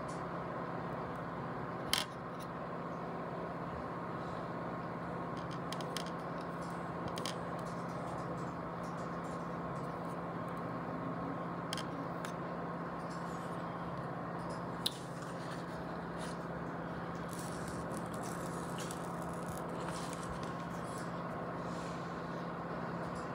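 Steady workbench room tone: a constant low hum with a faint higher tone over a light hiss, broken by a few faint ticks and two sharp clicks, about two seconds in and about fifteen seconds in. The soldering of the capacitor leads makes no distinct sound of its own.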